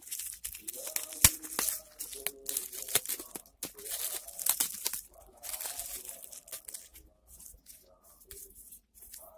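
Bubble wrap crinkling and crackling as it is pulled off a small packet by hand, with sharp clicks among the rustling; it quietens for the last couple of seconds.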